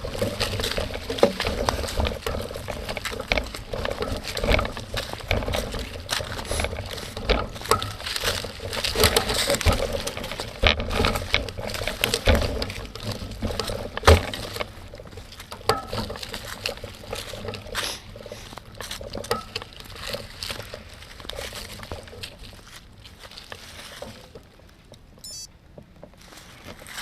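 Bicycle rolling over a rough dirt trail: tyres crunching and the frame and parts rattling in a dense run of small clicks and knocks, easing off and growing quieter about halfway through.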